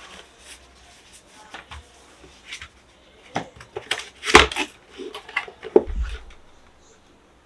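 A keyboard and its packaging handled during unboxing: scattered clicks, rustles and knocks at an uneven pace, the loudest a sharp knock about four seconds in, followed by a low thud about a second and a half later.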